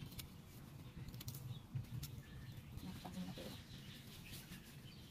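Birds calling faintly over a steady outdoor background, with a few sharp clicks and rustles from handling sweet potato vines and pruning shears.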